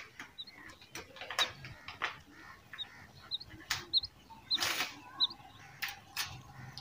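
Rain quail in a cage giving short, soft, high chirps, about seven scattered over a few seconds, with light knocks and rustles between them.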